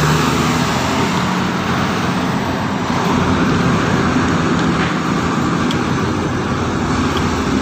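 Volvo L220H wheel loader's diesel engine running steadily while working, a deep engine note under a thick hiss.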